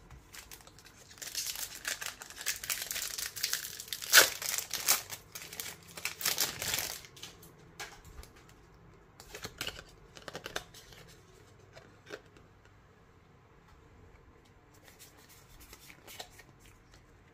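Foil booster pack wrapper crinkling and tearing as a trading card pack is opened, for about six seconds, followed by softer intermittent rustles and clicks of cards being handled.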